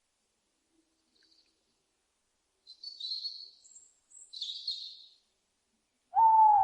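Owl calls: two hissing, screech-like calls of about a second each, then a much louder, clearer and lower call near the end that falls slightly in pitch.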